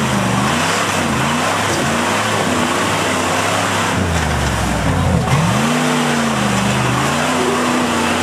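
Early Ford Bronco's engine revving hard, its pitch rising and falling again and again, as the tires spin on bare rock with a steady rushing hiss.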